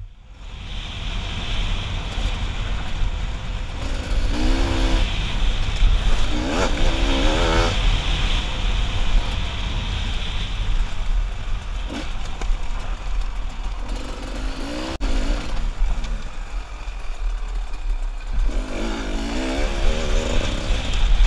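Enduro dirt bike engine running as it is ridden, the engine note rising and falling with the throttle several times.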